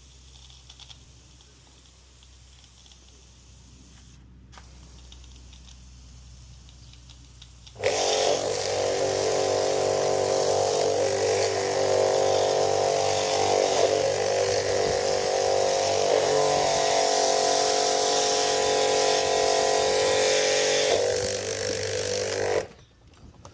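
Kärcher K-series electric pressure washer starting suddenly about a third of the way in and running steadily: a motor-pump whine with several steady tones over the hiss of the water jet. It cuts off sharply near the end. This is the test run of the freshly rebuilt washer.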